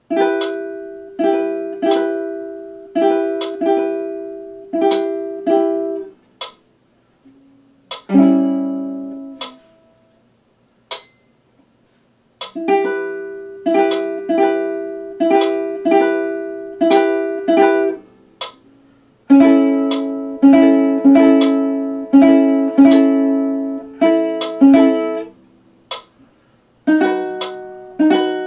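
Tenor ukulele strummed in chords, one strum to a beat, in runs of several strums broken by short pauses, each chord ringing briefly before the next.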